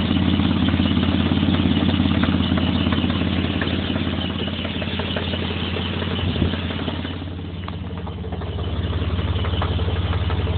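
1996 Mitsubishi Montero engine idling with a rhythmic knock that comes only at idle, which the owner thinks comes from the top end and suspects could be the alternator, a belt or a bearing. One sharper knock stands out about six seconds in, and the engine note drops about seven seconds in, then picks up again.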